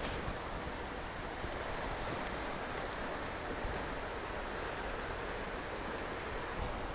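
Steady outdoor background noise: an even rush with no distinct events.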